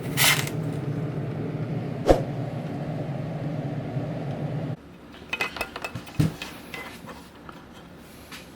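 Steady motor hum from the spraying equipment while a gloss clear coat goes on a clear plastic model part, with a brief spray hiss just after the start and a single knock about two seconds in. About halfway through the hum cuts off suddenly, leaving light clicks and knocks of small parts being handled.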